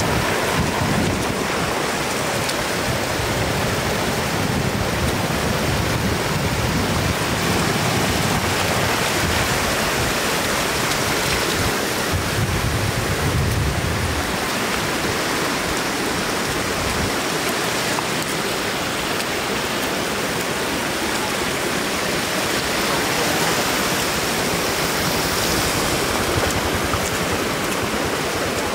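Shallow floodwater rushing steadily over a road and its edge, a continuous wash of running water.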